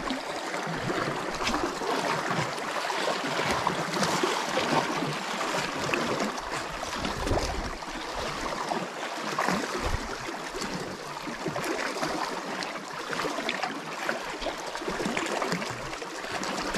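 Small sea waves lapping and sloshing against the rocks at the water's edge, an irregular watery splashing and trickling.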